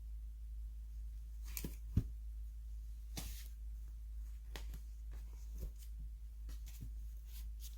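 Books and their packaging being handled: scattered soft rustles and light taps, with one sharper knock about two seconds in, over a steady low hum.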